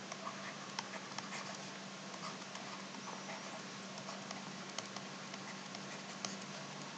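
Faint, irregular taps and scratches of a stylus writing on a tablet, over a steady low hum and hiss.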